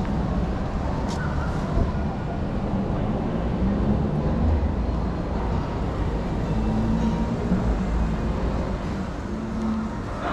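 Steady low rumble of city street ambience, of the traffic kind, with a single sharp click about a second in.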